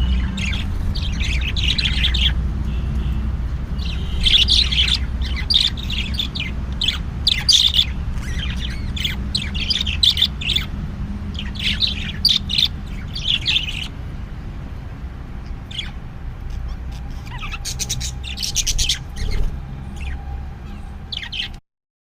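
Parrot calling in repeated bursts of high-pitched squawks and chirps, with a quieter lull partway through, over a steady low rumble. The sound cuts off abruptly near the end.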